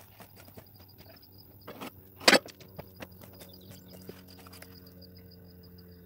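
Footsteps crunching on railroad ballast, with one sharp knock a little over two seconds in. A high pulsing chirp runs underneath, and a low steady hum comes in about halfway through.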